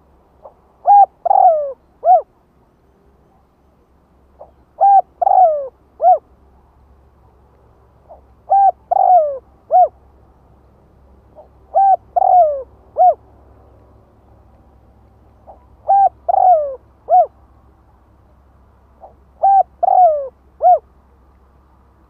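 Spotted dove cooing: six phrases about every four seconds, each a short soft note then three loud coos, the middle one longer and falling in pitch.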